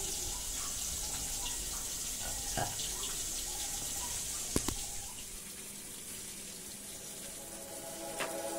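Rain falling, a steady hiss that drops away about five seconds in, with a couple of sharp ticks.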